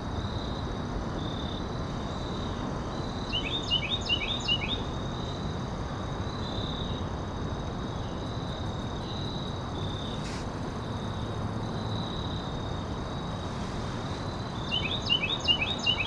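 Woodland ambience of steady insect trilling over a low hiss, with a bird giving two quick runs of short falling chirps, the first about four seconds in and the second near the end.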